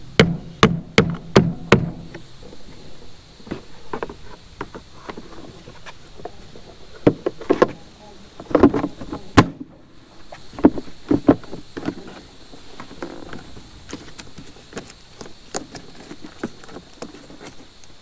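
Hand-tool clicks and knocks while new battery terminals are fitted to the sawmill's battery: a quick run of sharp clicks at the start, a cluster of knocks around the middle, then lighter scattered ticks.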